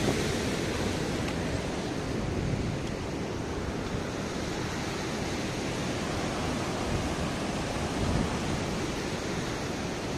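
Fast-flowing mountain stream rushing steadily, mixed with wind buffeting the microphone.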